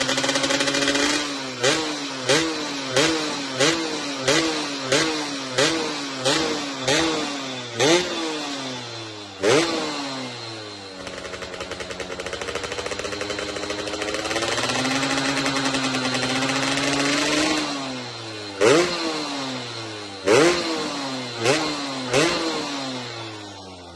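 Yamaha F1ZR's two-stroke single-cylinder engine revved in quick throttle blips, about eleven in a row roughly every two-thirds of a second, each a sharp rise in pitch that falls away. It then settles into a steady run, climbs to a steady higher speed for a few seconds, and is blipped four more times near the end.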